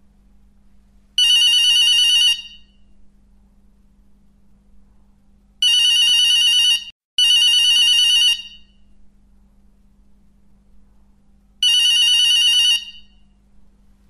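Old-style telephone bell ringtone, ringing four times for about a second each: once about a second in, twice close together in the middle, and once near the end.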